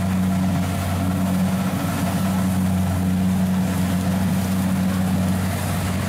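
Kubota DC-70 combine harvester's diesel engine running at a steady pitch while the machine cuts and threshes rice, a constant low drone.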